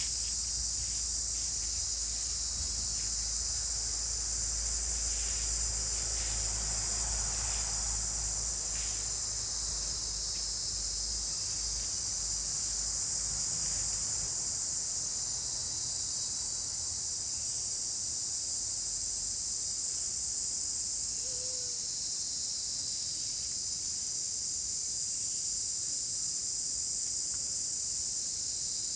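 Steady, high-pitched drone of a forest insect chorus that runs on without a break, with a low rumble under it through the first half and one brief faint chirp about two-thirds of the way in.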